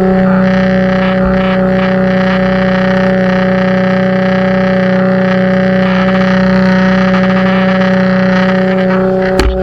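Pressure washer running with a steady, unchanging hum, with a brief click near the end.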